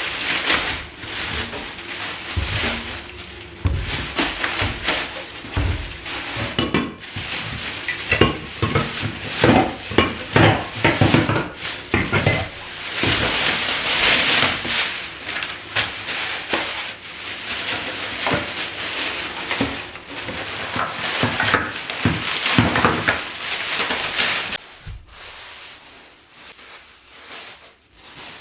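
Groceries being handled and unpacked: rustling packaging with many short knocks and clatters as items are picked up and set down. About 25 s in the handling stops and it goes much quieter, leaving a faint steady high whine.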